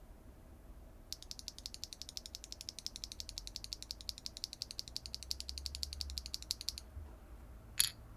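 Mechanical keyboard with clacky BSUN Ocean Tactile switches on a carbon fiber plate, no foam, being typed on fast: an even run of sharp clacks, about a dozen a second, for nearly six seconds. One louder single click follows near the end.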